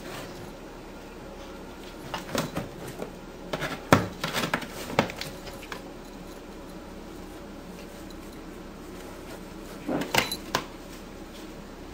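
A cat scratching, biting and knocking at a cardboard box: scattered bursts of scraping, rustling and knocks about two seconds in, the loudest a thump about four seconds in, and another short flurry near ten seconds.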